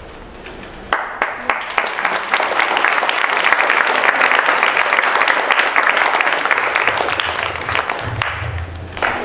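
Audience applauding, starting suddenly about a second in, holding steady, and thinning out near the end.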